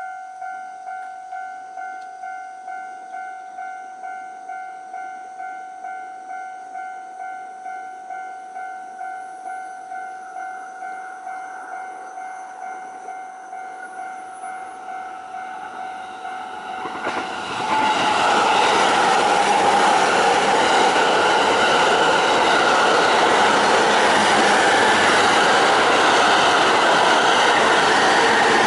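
Japanese level-crossing warning bell ringing, a two-tone ding repeating about twice a second. A little past halfway a JR East E531 series electric train passes close by, and its loud, steady rush of wheels and motors takes over.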